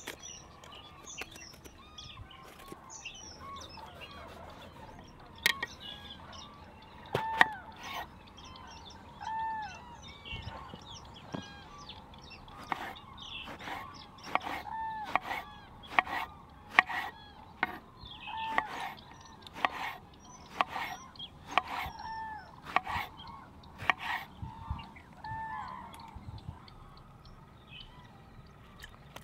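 Birds calling: a short arched call repeated every second or two over high chirping. Through the middle comes a run of sharp knocks, about two a second.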